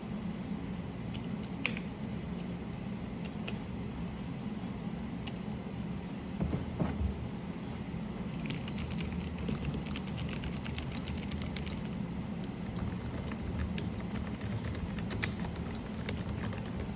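Scattered sharp plastic clicks and taps from handling a mechanical keyboard's keycaps and switches, with a dense run of clicks about halfway through and a few duller knocks shortly before it. A steady low hum runs underneath.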